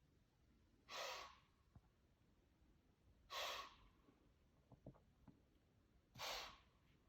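Deer wheezing: three short, hissing exhalations forced through the nose, spaced two and a half to three seconds apart. This is the wheeze call that whitetail bucks use as an aggressive, dominance challenge. A few faint clicks fall between the second and third wheeze.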